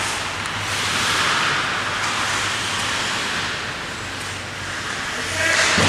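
Ambient noise of an ice hockey game in a rink: a steady hiss that swells about a second in and again near the end, with no clear speech.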